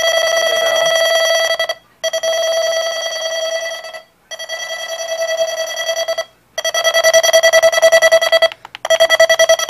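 Eton Zoneguard weather radio sounding its alert alarm for a received test message. It is a loud, fast-pulsing electronic beep that comes in bursts of about two seconds with short breaks between them, five times over.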